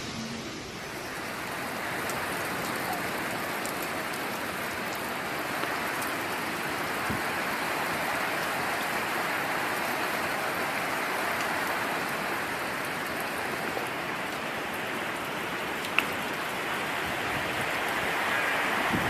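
Steady hiss of hurricane rain and wind, with a single sharp tick about sixteen seconds in.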